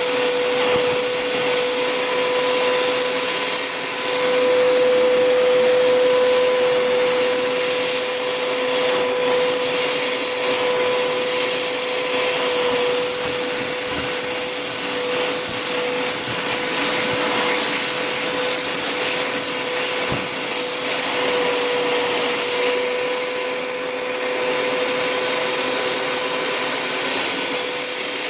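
Hoover Power Scrub Deluxe carpet cleaner running with its upholstery tool: a steady motor whine over the rush of suction, a little louder for a few seconds near the start.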